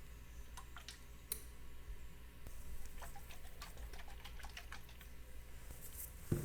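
Scattered light clicks and taps, more of them in the second half, with one dull thump near the end.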